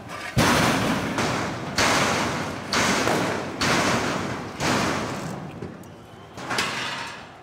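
A series of about seven loud, sharp bangs, roughly one a second, each trailing off in a long echo. The last comes after a pause of about two seconds.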